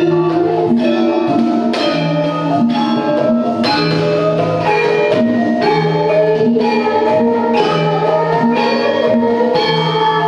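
Javanese gamelan music with kendang drumming: bronze metallophones struck in a steady beat, a ringing stroke about once a second over a recurring low note.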